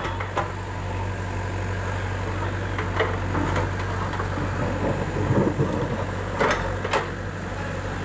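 JCB 3DX backhoe loader's diesel engine running steadily as the backhoe bucket digs through broken bricks and soil. A few sharp knocks of the bucket against rubble cut through, one about three seconds in and two close together near the end.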